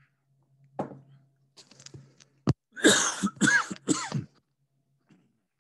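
A man clearing his throat, then coughing three times in quick succession.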